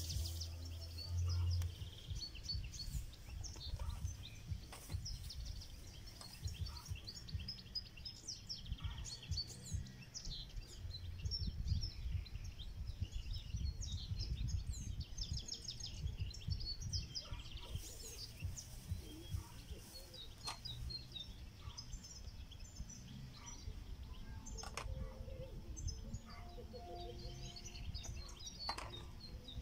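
Small birds chirping and singing in many short calls, over a gusty low rumble of wind on the microphone.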